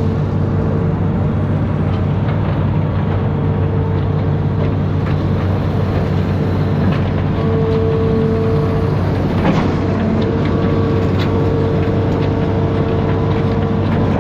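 Amphibious excavator's diesel engine running steadily, with a few light knocks now and then.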